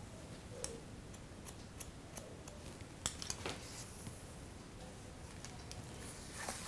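Hair-cutting shears snipping into the ends of long, dry hair in point cutting: a scattering of quick, faint, irregular snips.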